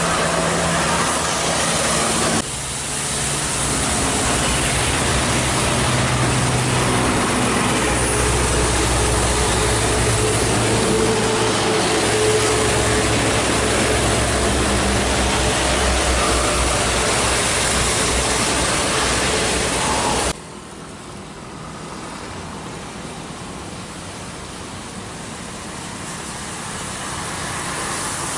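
Large diesel buses driving past on a rain-soaked road: a steady hiss of rain and tyre spray with a heavy engine running underneath, loudest in the middle. The sound drops sharply about twenty seconds in.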